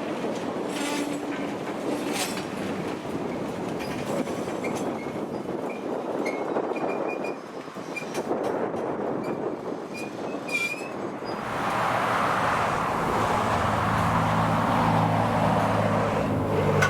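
Freight train cars rolling by in a steady rumble, with faint high wheel squeals in the middle. About twelve seconds in, the rolling noise grows louder and a low engine drone joins it.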